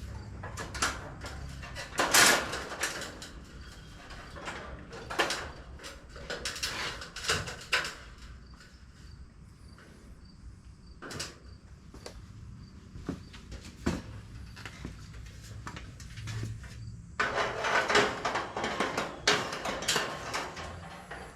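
Irregular knocks, thuds and scraping as building materials, likely wooden framing pieces, are handled and set in place, with a busier burst of clatter near the end.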